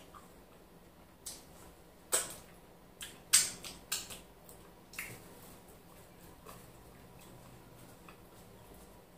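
Close-up eating sounds: wet mouth smacks and clicks from chewing slimy ogbono soup and semolina eaten by hand, and from licking the fingers. About seven sharp smacks come between one and five seconds in, the loudest about three and a half seconds in, then it goes quiet.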